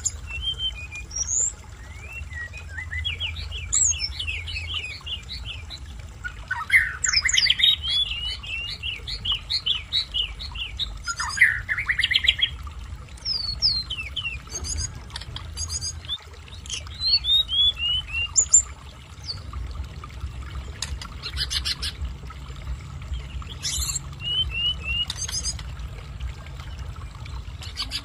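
Tledekan gunung singing in strings of quick, sweeping high chirps and trills, loudest around seven and twelve seconds in. This is a young bird practising its song. Beneath it runs a steady low sound of running water.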